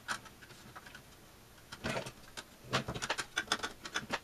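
Irregular clicks, taps and short scrapes of hands working parts of a B&K Precision E-200D RF signal generator's metal chassis as it is fitted back together, in a cluster about two seconds in and a busier run near the end.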